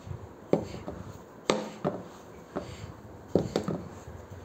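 A hand mixing dry ground urad dal with sugar and jaggery powder in a bowl: a soft rubbing of the powder, with several light knocks at irregular intervals as the hand strikes the bowl.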